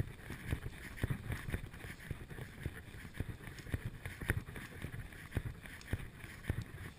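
Footsteps of a person walking briskly through grass, about two steps a second, with wind rumbling on the microphone.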